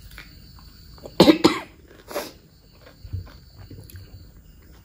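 A person coughing with a mouth full of food: two sharp coughs in quick succession about a second in, then a third, weaker one a moment later.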